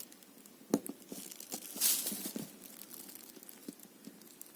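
Small plastic clicks and taps with a brief rustle as a phone's display and touch panel are handled while working the flex-cable connector.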